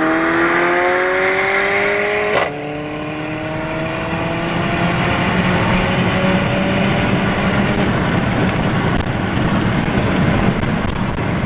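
Turbocharged four-cylinder car engine under hard acceleration, heard from inside the cabin. Its pitch climbs steadily, a short crack marks a gear change about two and a half seconds in, and it then pulls on in the next gear under rising wind and road noise.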